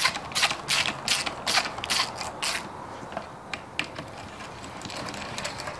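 Socket ratchet clicking as it runs a clutch spring bolt down on the pressure plate of a Kawasaki KX250 clutch. It goes in about seven even strokes over the first two and a half seconds, then a few lighter clicks.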